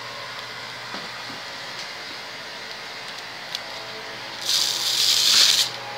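A loud, even hiss lasting just over a second, starting about four and a half seconds in, over a faint steady hum.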